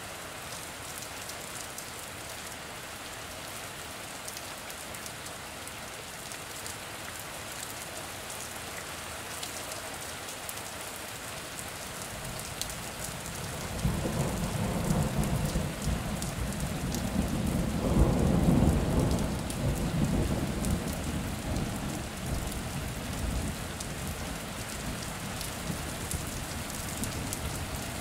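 Steady rain with fine ticks of individual drops. About halfway through, a long low rumble of thunder swells, peaks a few seconds later, and dies away while the rain carries on.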